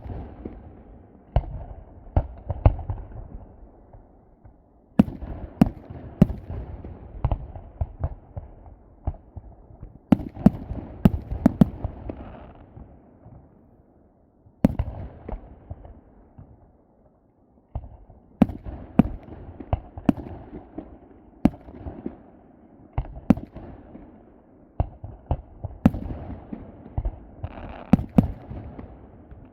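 Aerial fireworks going off in quick volleys of sharp bangs over a low rumble, with short lulls about four, fourteen and seventeen seconds in.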